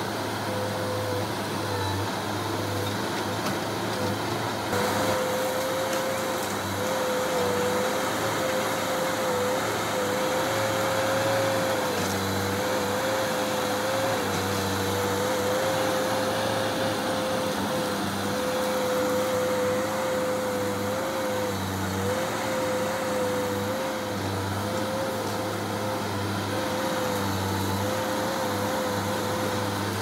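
Bulldozer's diesel engine running steadily at work, with a high whine that wavers slightly in pitch and a low hum that comes and goes.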